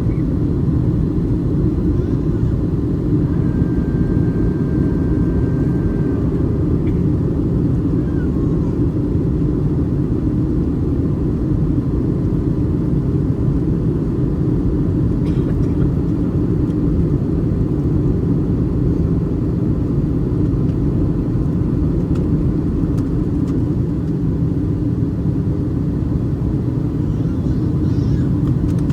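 Steady, low cabin drone of a Boeing 737-800 in flight: its CFM56-7B engines and the airflow, heard inside the economy cabin from a seat over the wing.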